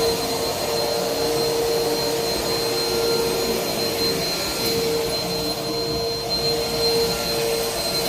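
Vacuum cleaner running steadily, its motor whining high over a broad rush of air.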